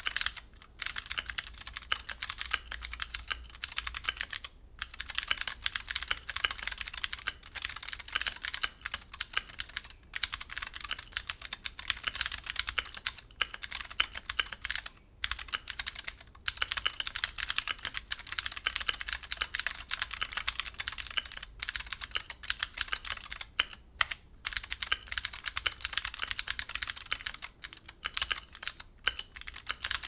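Continuous fast typing on a stock, unmodded Keychron Q4 60% mechanical keyboard fitted with clicky Gateron G Pro Blue switches and Keychron OSA double-shot PBT keycaps: a dense run of sharp key clicks, broken by a few brief pauses.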